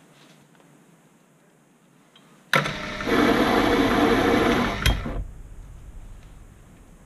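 Proxxon PD 250/e mini lathe switched on with a click about two and a half seconds in. Its motor and gear train run for about two seconds, driving the lead screw while the threading tool takes a spring pass at final depth. A second click near five seconds in marks it being switched off, and it winds down.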